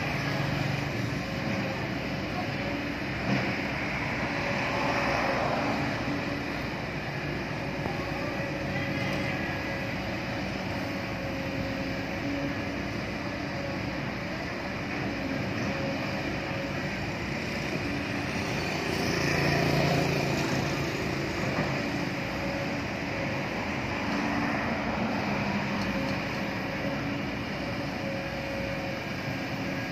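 Kobelco hydraulic excavator's diesel engine running steadily under load while it works. The sound swells louder twice, about five seconds in and again about twenty seconds in.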